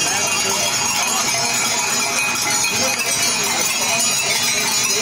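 A herd of goats going by, with goats bleating over a steady hiss of rain on the wet road.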